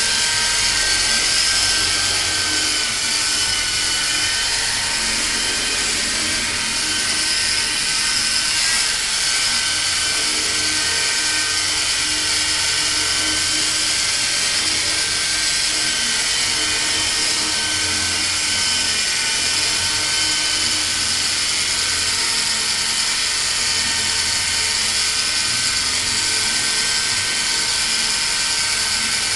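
E-Sky Honey Bee fixed-pitch electric RC helicopter hovering: a steady high whine from its small electric motors and spinning rotors, the pitch wavering slightly as the throttle holds the hover.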